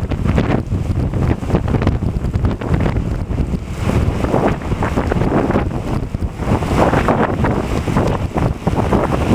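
Storm wind buffeting the microphone in a rainstorm: a loud, continuous rushing noise that swells and dips in gusts.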